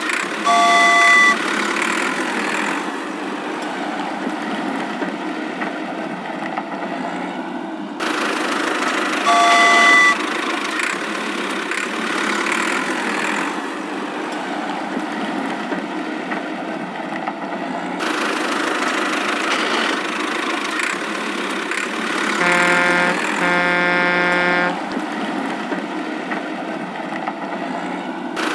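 Cartoon vehicle sound effects: a steady engine running under the whole stretch, changing abruptly twice, with a short high horn toot about a second in and again about ten seconds in, and two longer, lower horn honks near the end.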